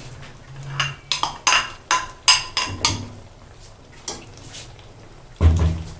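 A metal spoon clinking and knocking against a cooking pot while stirring, a quick run of sharp strikes with short ringing, then one heavier, deeper knock near the end.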